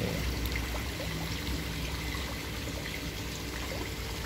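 Water pouring and trickling steadily into a koi pond, a continuous splashing hiss with a low hum underneath.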